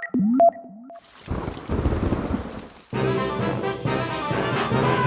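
A few short tones and clicks, then a low noisy rumble for a couple of seconds; about three seconds in, a brass marching band with drums strikes up suddenly and keeps playing.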